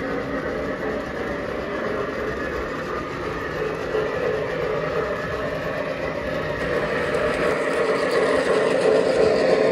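O gauge model freight train behind a Lionel Pennsylvania L1 Mikado steam locomotive, rolling steadily on three-rail track with a continuous wheel rumble. The sound grows louder near the end as the locomotive passes close by.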